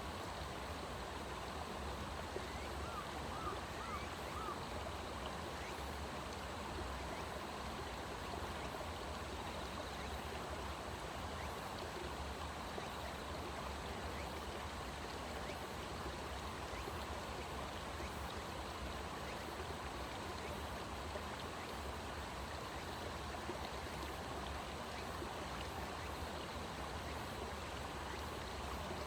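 Steady rush of running water, like a stream, with a few faint short chirps about three seconds in.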